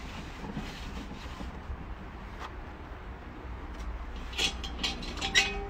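A towel wiping over a cast iron pan, a soft rubbing hiss in the first second and a half. Then a few light metallic clinks as the pan is handled, over a steady low hum.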